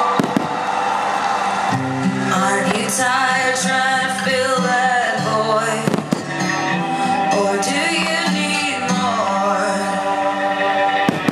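Music with singing, with a few sharp firework bangs: near the start, about halfway through and near the end.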